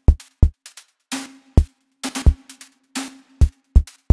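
Synthesized drum kit made in Steinberg's Retrologue synth playing a programmed beat. Short deep kick thumps, snare hits of white noise over a triangle-wave tone, and short hi-hat ticks.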